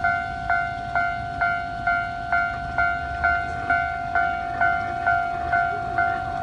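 Japanese railway level-crossing warning bell ringing steadily, about two strikes a second, each strike a sharp ding that rings briefly.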